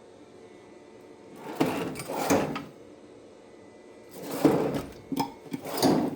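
Metal tool chest drawers sliding open and shut several times, in two bouts with a few clicks and knocks between them.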